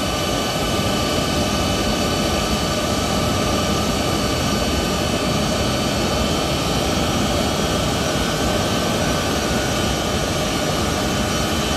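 Boeing C-17A Globemaster III jet engines running steadily: a loud, even roar with several high, steady whine tones over it.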